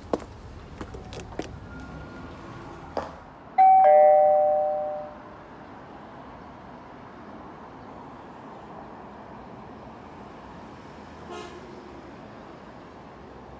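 A loud two-note ding-dong chime, a higher note then a lower one, ringing out and dying away over about a second and a half, after a few light clicks.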